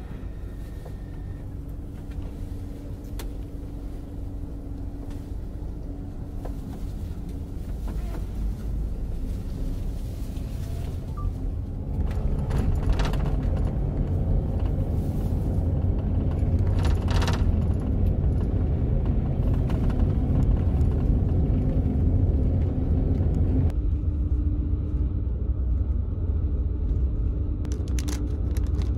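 Cabin rumble of a double-decker highway bus on the move: engine and road noise heard from inside. It grows louder over the first half as the bus gathers speed onto the expressway, then stays steady.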